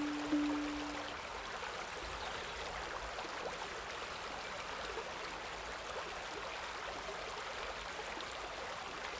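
Shallow stream running over stones, a steady rushing hiss. A held note of background music fades out in the first second.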